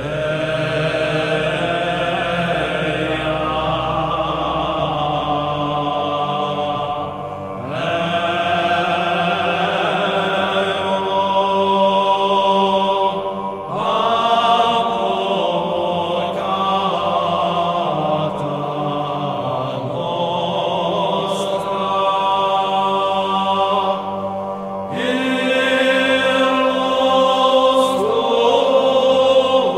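Slow, chant-like background music of long held notes, moving to a new phrase every few seconds.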